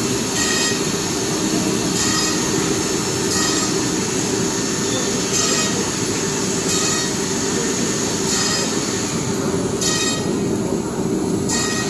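CNC nesting router running and cutting a board: a steady loud machine drone with a high squealing whine that comes and goes every one to two seconds as the spindle works.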